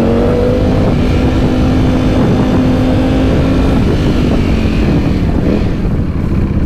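Sport motorcycle engine heard from the rider's seat in second gear. It revs up at the start, holds a steady note, then drops off in the second half as the throttle is closed, over constant wind and road rumble.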